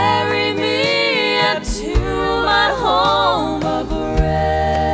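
Background music: a slow song with a voice gliding through long, drawn-out notes over a steady bass line.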